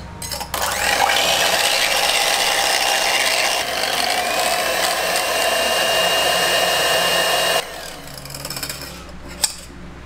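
Electric whisk motor running steadily as it beats egg into the foam for Vietnamese egg coffee, with a thin whine that rises a little in pitch about four seconds in; it stops abruptly after about seven seconds.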